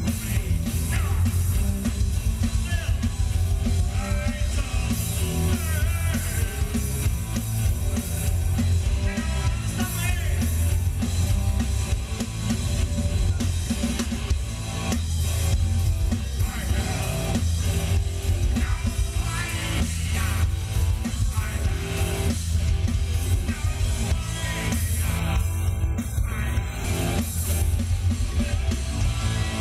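Live rock band playing at full volume: a drum kit, amplified electric guitar and bass, with a male singer's voice over them.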